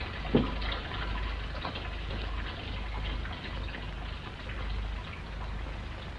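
Steady hiss and irregular crackle over a low mains hum, the surface noise of a worn old optical film soundtrack, with a single dull thump about half a second in.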